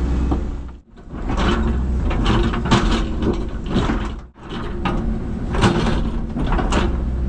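Cat 312CL excavator's diesel engine running steadily, with repeated scraping, cracking and clattering of demolition debris being worked by the machine. The sound cuts out briefly twice.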